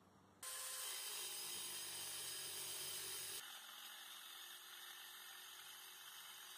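WORX compact circular saw cutting through aluminum angle with a welded-on aluminum plate. The cutting noise starts abruptly about half a second in and, about three seconds in, turns thinner and a little quieter.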